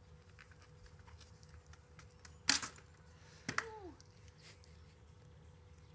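A plastic hula hoop dropping and clattering onto a concrete patio: one sharp clatter, then a second knock about a second later trailed by a brief falling tone.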